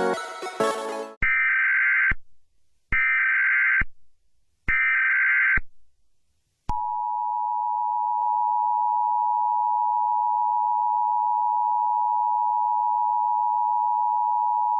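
Electronic dance music cuts off about a second in. Three short bursts of Emergency Alert System SAME header data tones follow, then the long steady two-tone EAS attention signal.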